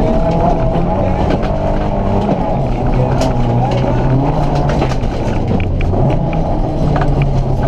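Volkswagen Polo GT's engine heard from inside the cabin, driven hard with its pitch stepping up and down several times through gear changes and lifts. Sharp ticks of gravel and stones strike the underbody throughout.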